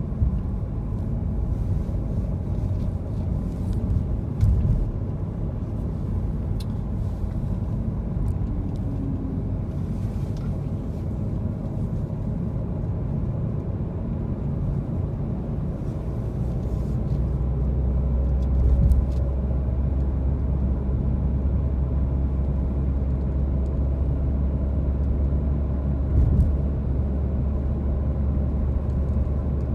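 A car driving on a city road: a steady low rumble of tyres and engine that grows stronger about halfway through, with a few brief bumps.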